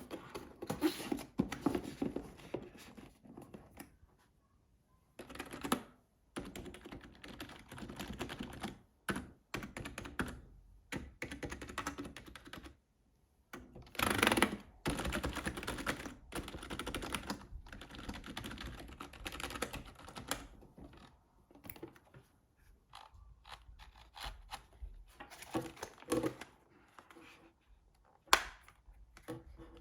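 Typing on a SteelSeries Apex 3 TKL keyboard with its whisper-quiet membrane switches: runs of soft key clicks broken by two short pauses.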